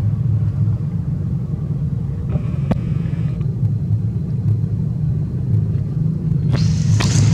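A steady low rumble, with a short faint rustle and click in the middle and a louder hiss starting near the end.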